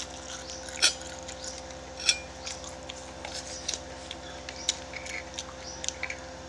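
Close-up eating sounds: chewing, with sharp short clicks scattered through, the strongest about a second in and about two seconds in. A steady low hum lies beneath.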